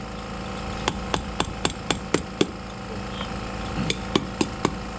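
Hammer blows during a differential teardown: a quick run of about seven evenly spaced strikes, roughly four a second, then a pause and four more.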